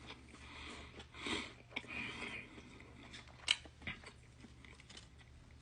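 A person chewing and biting into a ham, turkey and bacon sandwich with soft mouth sounds, with a couple of sharp smacks about three and a half seconds in.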